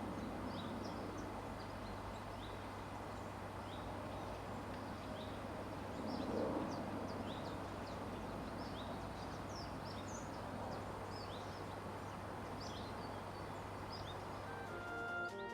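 Small birds giving short, high chirps, scattered several at a time, over a steady background hum and outdoor noise.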